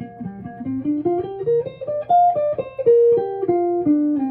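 Guitar playing a fast single-note scale run, picked note by note, climbing for about two seconds and then coming back down. It is a minor-key pentatonic and connector-scale practice drill.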